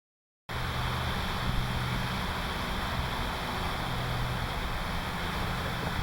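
Steady rushing background noise with a low hum, starting abruptly about half a second in out of dead silence.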